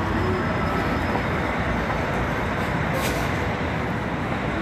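Steady rumble of city street traffic, with a brief hiss about three seconds in.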